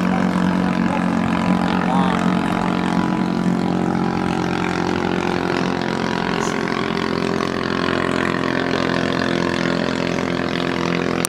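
Bancarera racing boat engines running at speed with a steady, even drone.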